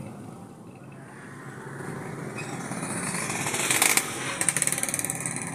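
A motorcycle passing close by: its engine and tyre noise build over about three seconds, are loudest with a rapid pulsing about four seconds in, then fall away near the end.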